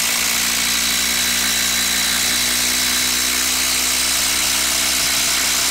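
Bosch IDH182 18 V brushless impact driver hammering without a break as it drives a long screw into end-grain wood: a steady, loud buzzing rattle.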